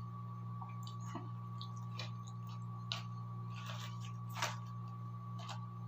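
Steady low hum with scattered small clicks and taps, the sharpest about three and four and a half seconds in.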